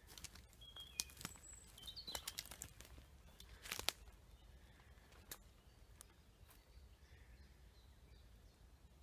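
Footsteps on dry forest floor, twigs snapping and litter crunching in a string of sharp cracks, the loudest just before four seconds in, then quieter. A few faint bird chirps.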